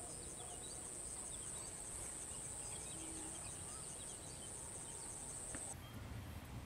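Steady high-pitched insect trill in a rice paddy, with faint scattered bird chirps. It cuts off abruptly a little before the end, leaving only a low field rumble.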